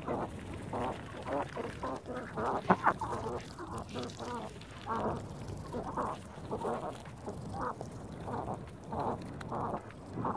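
Domestic ducks, Silver Appleyards among them, giving short, low quacks one after another, with a louder pair about three seconds in.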